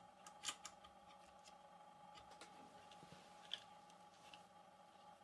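Near silence with a few faint clicks of small plastic parts and a cable connector being handled on a 3D printer's print head, the loudest about half a second in and another about three and a half seconds in, over a faint steady hum.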